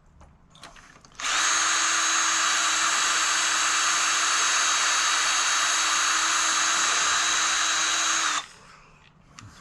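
Electric drill running at one steady speed as it drills out the hinge pin screw of a Brompton folding bike. It starts about a second in, runs for about seven seconds and stops suddenly.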